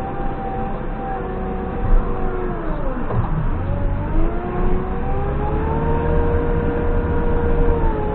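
Diesel engine of a JCB 3CX backhoe loader running under load, with a knock about two seconds in. About three seconds in the engine speed dips sharply, then it revs back up and holds higher, easing off slightly near the end.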